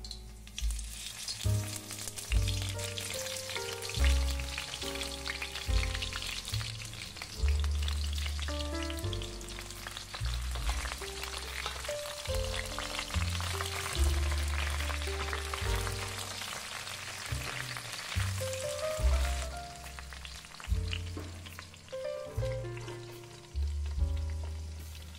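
Green friggitelli peppers frying in hot olive oil, a hiss of sizzling that starts just after they drop into the pan and dies down about twenty seconds in. Background music with a bass line and melody plays throughout.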